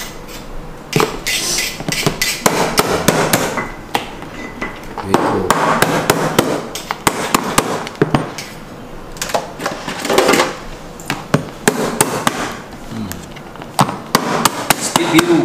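Hard crab legs and claws being cracked open with repeated sharp knocks, unevenly spaced and sometimes in quick clusters.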